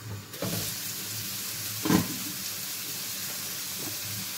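Vegetables (carrots first) sautéing in hot oil in a frying pan with no water added, the sizzle growing louder as the lid comes off just under half a second in. A single knock about two seconds in is the loudest moment.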